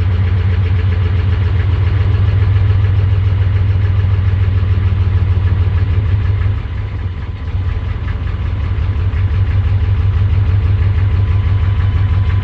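GM 6.5 L V8 diesel engine idling roughly; about halfway through its note sags and then picks back up, the RPM surging up and down. The owner is at a loss over the cause and suspects fuel delivery: injection pump pressure or dead injectors.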